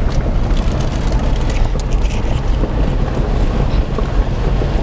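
Steady road and engine noise inside a moving SUV's cabin, with wind buffeting the microphone.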